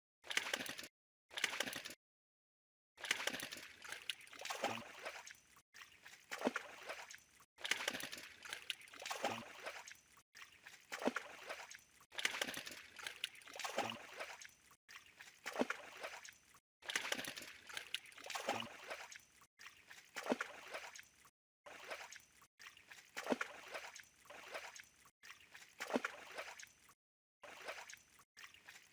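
Water splashing and sloshing in repeated surges, about one every second and a half, with a few abrupt dead-silent gaps between them.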